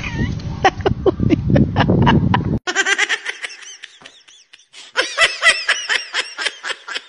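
Person laughing hard in quick, high-pitched bursts. Over the first two and a half seconds a rumbling noise lies under the laughter, then cuts off suddenly.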